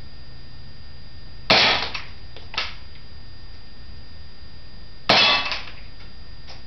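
Two shots from a CO2-powered Smith & Wesson M&P airsoft pistol, about three and a half seconds apart, each a sharp crack with a short ring in the garage. A much fainter click follows about a second after each shot.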